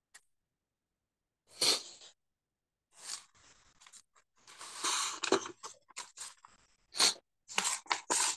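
Irregular bursts of rustling and handling noise, the loudest about two seconds in and near the end.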